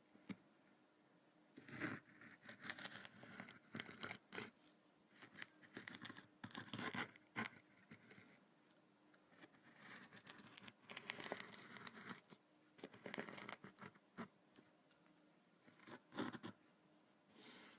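Kinetic sand being crumbled, cut and pressed, giving soft crisp scratching and crunching in irregular bursts with short pauses between them.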